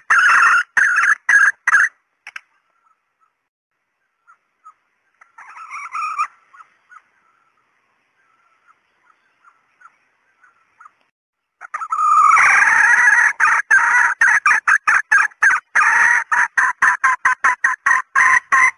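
Female red junglefowl calling: a quick run of sharp repeated cackling notes, then a few soft clucks and one short call, then a long fast series of cackling notes that speed up toward the end.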